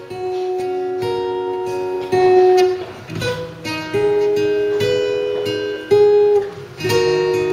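Acoustic guitar playing the instrumental opening of a pop song, strummed chords and ringing picked notes, before any singing comes in.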